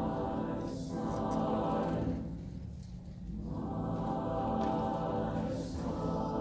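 Slow music from a performing ensemble holding sustained chords that fade to a brief lull about halfway through, then swell back in.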